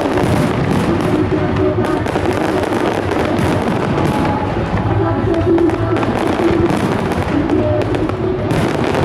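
Aerial fireworks shells bursting and crackling in rapid, dense succession, with music playing loudly alongside.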